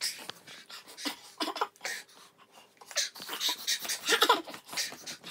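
Irregular short bursts of hard breathing, sniffing and coughing, with a brief vocal noise about four seconds in: people reacting to the burn of very spicy noodles.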